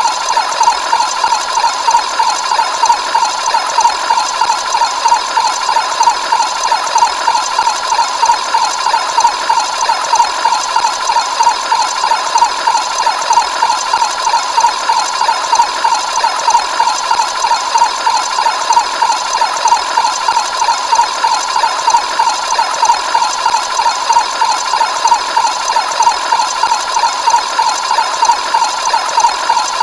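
Sound-effect alarm tone: a high buzzing tone pulsing rapidly and evenly, a few pulses a second, without change.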